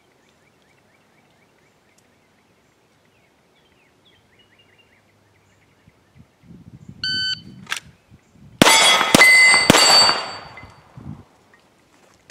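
Near silence for about seven seconds, then a shot timer gives one short beep. Less than two seconds later a Glock 17 9 mm pistol fires three quick shots about half a second apart, each hitting a steel target that rings on after the shot, all three inside 2.67 seconds of the beep.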